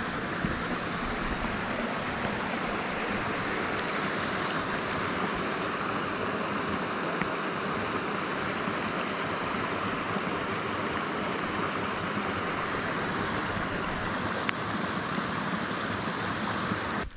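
Mountain stream rushing: a steady, even rush of flowing water.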